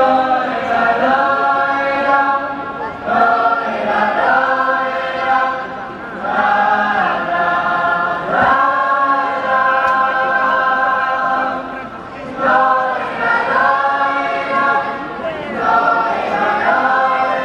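A large group of men singing a Hasidic melody together in unison, in phrases of a few seconds with short breaks between them.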